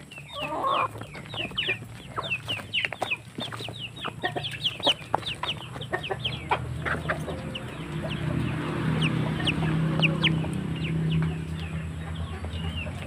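A flock of chickens clucking and calling close up, with a rapid run of short high calls that thins out after the first half. About halfway through, a low steady hum comes in and grows louder.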